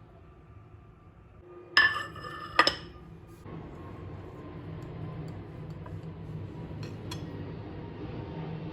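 Two sharp, ringing clinks of kitchenware knocking together, a little under a second apart, followed by a steady low hiss.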